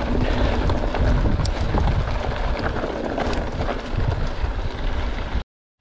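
Mountain bike riding over rough, rocky ground: wind buffeting the microphone, with rattling and knocks from the bike. It cuts off suddenly near the end.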